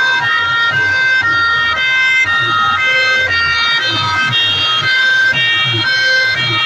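Competition DJ remix music blasting at full volume through a bank of horn loudspeakers: a shrill, siren-like melody of stepping high tones repeats over a pulsing bass beat.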